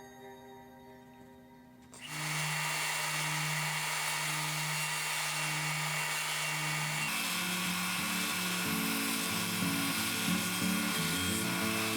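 A power tool starts about two seconds in and runs at a steady pitch. From about seven seconds on, its pitch wavers as it cuts holes in the control panel surface.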